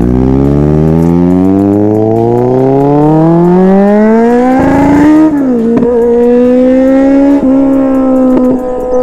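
Kawasaki Z900 inline-four with an aftermarket exhaust accelerating hard: the engine note climbs steadily for about five seconds, drops a step, then holds nearly steady at high revs.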